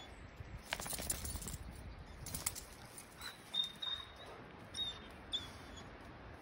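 Two dogs scuffling and pawing at a metal garden fence, with a few quick rattling scrapes in the first half. Several short, high-pitched chirps follow in the second half.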